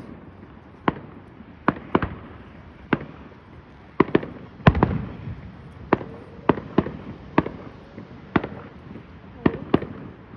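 Fireworks going off in an irregular string of sharp bangs, roughly one or two a second, each trailing a short echo. About four to five seconds in comes a heavier, longer boom.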